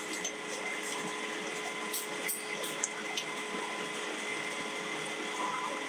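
Vertical milling machine running steadily, its spindle and coolant pump giving an even whine with coolant splashing. A few light metal clinks come from steel sprockets being stacked on the fixture.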